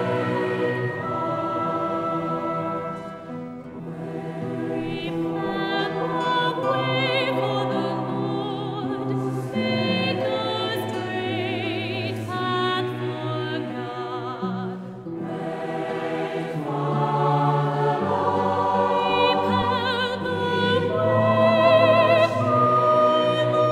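Choral music: a choir singing slow, held phrases with vibrato, pausing briefly about three and fifteen seconds in.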